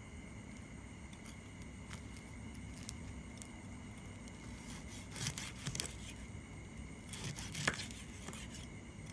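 A knife cutting through deep-fried crispy pork belly on a wooden board: two bouts of short crackling crunches from the crisp skin, about five seconds in and again about seven seconds in, over a steady low hum.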